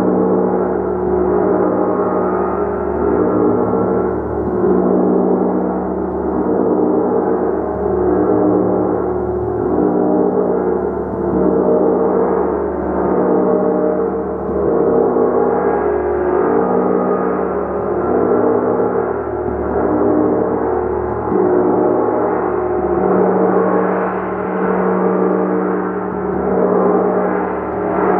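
A gong played continuously with soft repeated strokes, a dense sustained wash of overlapping ringing tones that swells and ebbs about every two seconds.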